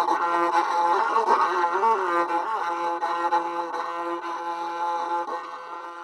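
Banam, the Santhal bowed folk fiddle, bowed in a melody with wavering pitch over a steady held tone, then fading out gradually over the last few seconds.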